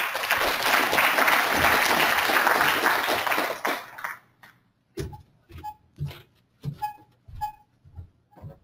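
Audience applauding for about four seconds, then dying away. After that come short, evenly spaced footsteps on a stage floor, about two a second.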